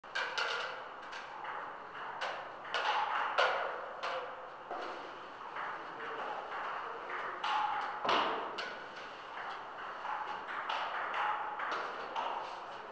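Table tennis rally: a ping-pong ball clicking off paddles and bouncing on the table in quick, irregular succession.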